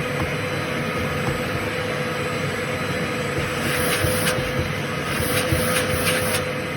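A steady machine whirr with a constant whine, and a few short scraping rasps in the second half.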